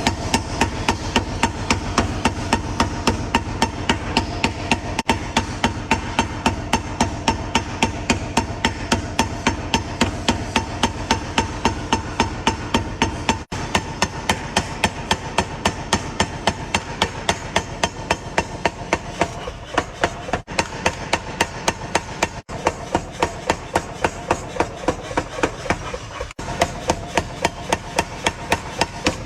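Blacksmith's hammer forging a steel hoe blade on an anvil: a long run of quick, evenly spaced blows with a metallic ring, about three a second, broken by a few very short gaps.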